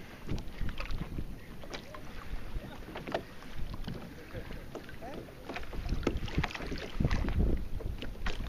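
Small sea waves lapping and slapping against a kayak, with many short splashes, and wind rumbling on the microphone.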